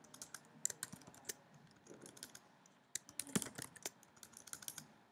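Faint typing on a computer keyboard as a search term is entered, in two runs of quick keystrokes: one in the first second and a half, and a denser one from about three seconds in.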